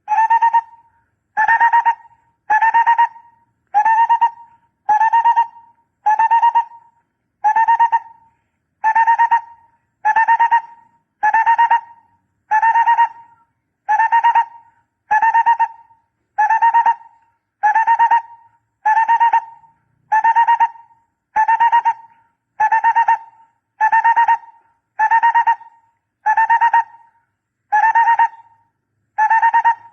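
Barbet calling: the same short, rapidly pulsed throaty note repeated at a steady rhythm, about once every second and a half.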